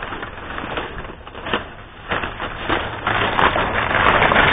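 Rustling and crinkling of discarded bags and packaging as hands rummage through trash, with scattered small clicks; the rustling grows louder in the last second and a half.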